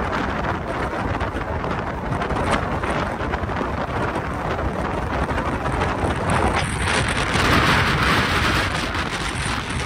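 Wind buffeting the phone's microphone in a moving car: a loud, steady rushing noise with no clear engine note.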